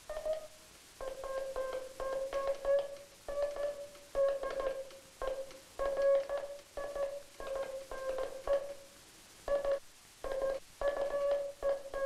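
Morse code sent on a J38 hand key, heard as a beeping oscillator tone keyed on and off in dits and dahs. The dahs come out short and the spacing is erratic, the sign of a hand key with too wide a contact gap or too stiff a spring.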